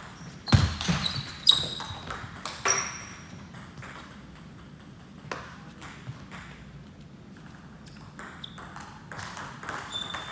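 Table tennis ball being hit back and forth in a rally, sharp clicks off the paddles and table, several with a short high ping. After about three seconds the rally stops and only a few scattered taps follow.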